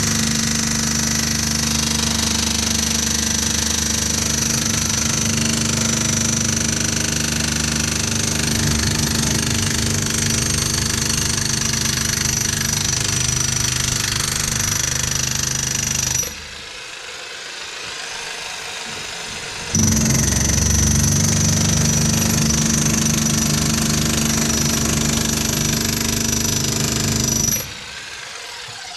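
An electric power tool running steadily with a high whine and a low hum. It stops about two-thirds of the way through, starts again a few seconds later, and stops shortly before the end.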